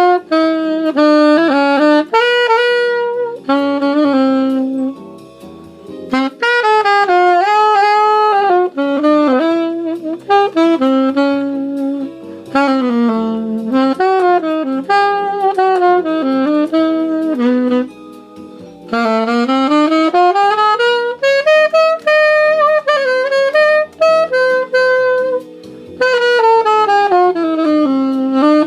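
Martin Typewriter alto saxophone played as a short tune, a single melodic line running through quick notes and slides, in phrases with brief pauses between them.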